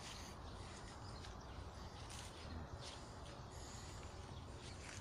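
Quiet outdoor ambience: a steady low rumble with a few faint scuffs and clicks about two seconds in.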